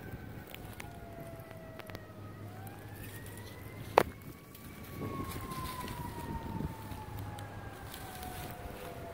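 Emergency vehicle siren wailing, its pitch falling slowly, rising once about two and a half seconds in, then falling again. A single sharp knock about four seconds in is the loudest sound.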